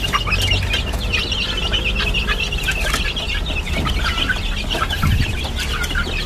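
A brood of young chicks peeping continuously, many short high cheeps overlapping.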